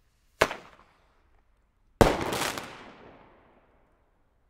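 Two fireworks going off: a sharp bang about half a second in, then a louder bang about a second and a half later that trails off over nearly two seconds.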